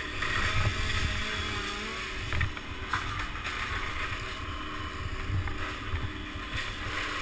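Two-stroke chainsaw idling steadily, with irregular low bumps and wind on the helmet-mounted microphone as the climber moves against the trunk.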